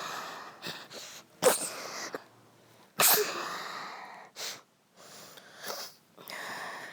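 A woman with a cold-like illness sneezing twice, about a second and a half apart, each a sudden loud burst that tails off, followed by quieter breathy sounds.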